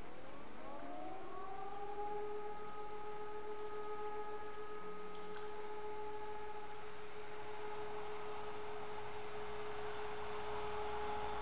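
E57 motor siren sounding one long tone of the German fire-alarm (Feueralarm) signal. It winds up in pitch over the first second or so, holds a steady wail, and begins to wind down at the very end.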